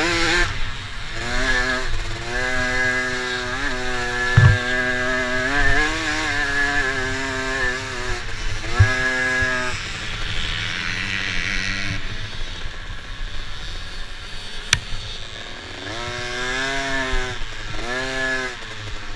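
Dirt bike engine, heard from the bike itself, revving up and down as it is ridden over a rough dirt course. The engine eases off for a few seconds in the middle and climbs again near the end. Two thumps come about four and nine seconds in.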